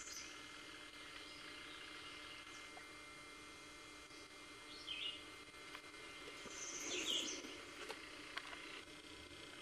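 Wild birds calling: a few short high chirps about halfway through and a louder cluster of calls a couple of seconds later, over a faint steady background hiss.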